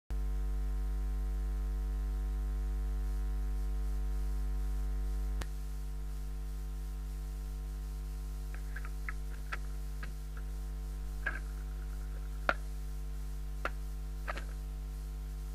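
Steady electrical mains hum from the console, which drops a little with a click about five seconds in. From about eight seconds come a series of light mechanical clicks and clunks: the Perpetuum-Ebner PE66 automatic changer is started and its tonearm moves onto the 78 rpm shellac record.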